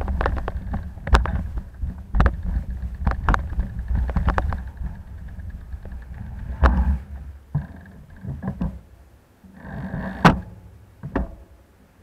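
Bicycle ride heard through a bike-mounted action camera: low wind and road rumble with irregular sharp clicks and rattles, as over bumps. The rumble drops away in the second half.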